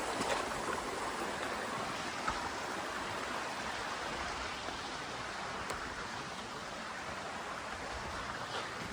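Steady rushing of a stream and waterfall, an even hiss of falling, flowing water.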